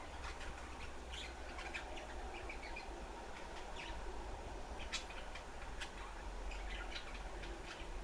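Budgerigars chattering in their cage: many short, scattered chirps and twitters, over a low steady hum.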